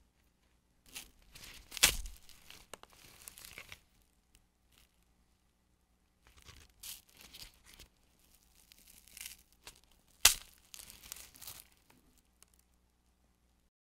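A brown-sugar fu-gashi, a crisp baked wheat-gluten stick, being broken apart by hand: two spells of crackling and tearing, each with one sharp crack, about two seconds in and about ten seconds in.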